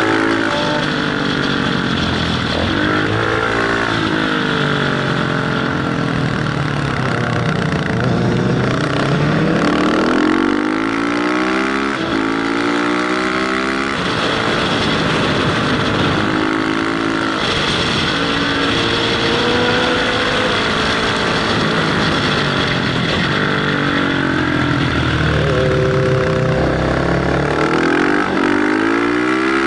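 Motorcycle engine under hard riding, pulling up through the revs and dropping back at each gear change, again and again, over a steady rush of wind on the helmet camera.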